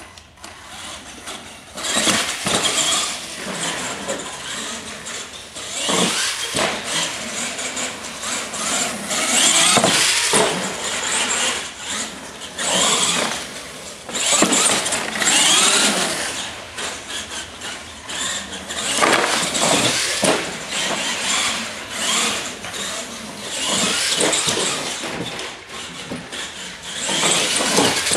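Radio-controlled monster truck driving hard: its motor and gears whine in repeated surges as the throttle is worked, tyres squealing and scrubbing on the concrete floor, with several sharp knocks as it lands off ramps.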